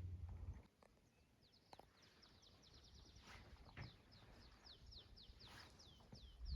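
A small bird singing faintly: a long run of quick, high chirps, each sliding downward in pitch, several a second, starting about a second and a half in.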